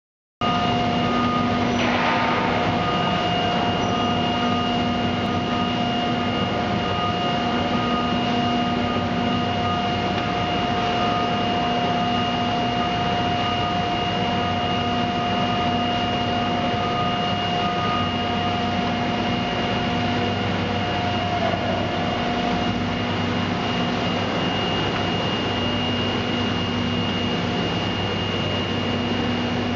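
Orange Mud Hog 10 cubic foot paddle mixer running, its paddles churning a batch of epoxy polymer concrete. A steady motor drone carries a constant high whine over it.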